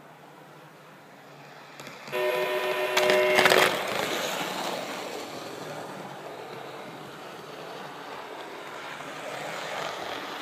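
A multi-tone train horn blasts for about a second and a half, and a quick clatter of hard plastic strikes comes about three seconds in as an HO-scale model train crashes into a caboose and knocks it over. After that, the model train runs on with a steady rumble from its wheels and motor, which swells a little near the end as it passes.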